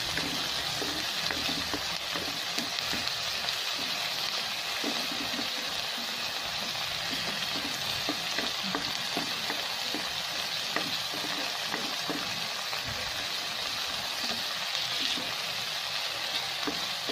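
Chopped onion, garlic and tomato sizzling steadily in hot oil in a nonstick wok, stirred with a plastic spoon that scrapes and taps now and then against the pan. The tomatoes are being sautéed down until they release their juice.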